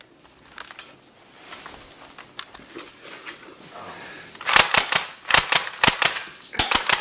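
An airsoft gun firing a rapid string of sharp shots, starting about halfway through after some faint rustling and a few clicks, with a short break before it fires again.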